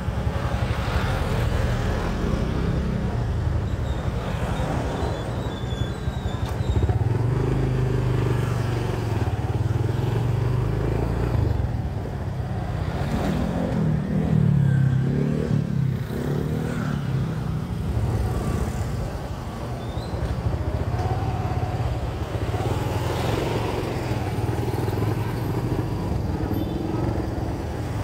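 Motorcycle engine of a tricycle (motorcycle with sidecar) running steadily while riding along a street, its pitch rising and falling about halfway through as the speed changes.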